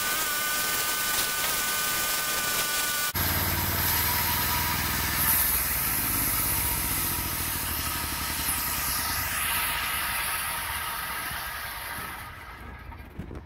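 Homemade sawmill running: a steady high whine, then after an abrupt change about three seconds in, its engine running with a hiss, dying away near the end.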